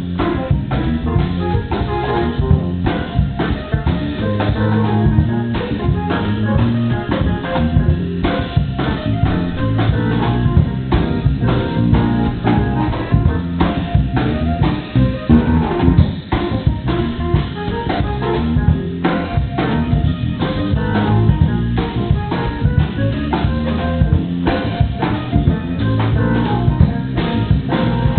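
Band music with a drum kit keeping a steady beat under guitar.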